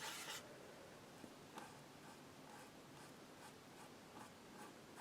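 Faint scratching of a paintbrush working acrylic paint on canvas, with a short, louder stroke at the start and lighter strokes about once a second after it.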